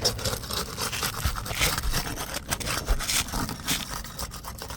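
A tool scraping and prying under an asphalt roof shingle in irregular short strokes, breaking the shingle's adhesive seal.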